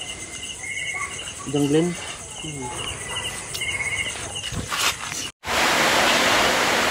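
Crickets chirping in short repeated high pulses. About five seconds in the sound cuts out for a moment, and a louder steady rushing noise takes over.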